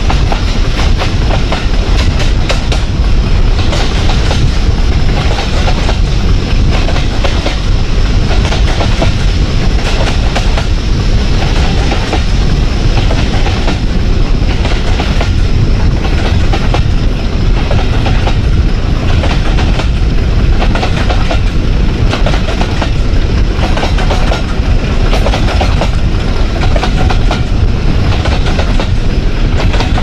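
Class 50 locomotive's English Electric 16-cylinder diesel working hard under power, heard from an open window of the coach behind it. Wheels clack steadily over the rail joints and wind buffets the microphone.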